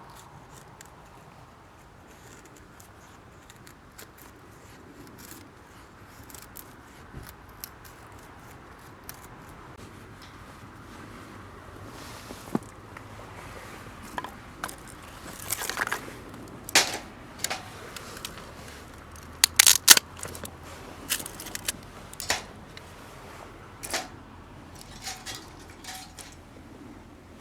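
Wood campfire crackling, with scattered sharp pops and snaps that come more often and louder in the second half, the loudest burst of pops about twenty seconds in.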